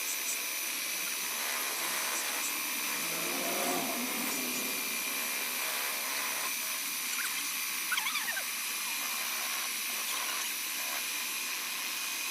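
Small electric power-tool motor running steadily, a constant high whine over a hiss, with a brief cluster of faint clicks about eight seconds in.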